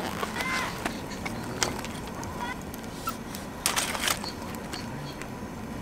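Roticamp lantern stand being handled and set up: a few light metal clicks and knocks, then a louder scraping rattle about four seconds in as its tripod legs are opened out.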